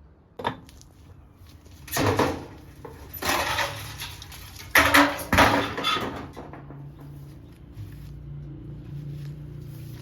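About five loud knocks and clatters, like pots or utensils being handled and set down, over the first six seconds, followed by a low steady hum.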